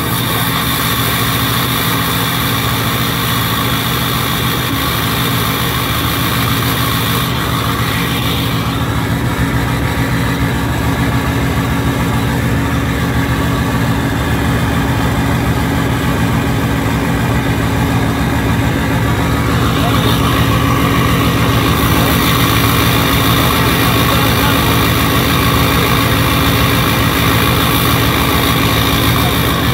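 Ford 6.0-liter Powerstroke turbo-diesel V8 idling steadily at the tailpipe after a cold start, growing a little louder about twenty seconds in.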